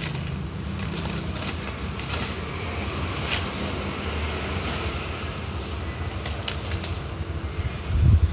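Clear plastic stretch wrap crinkling and rustling in short crackles as hands handle a headlight wrapped in it, over a steady low hum. A low thump near the end.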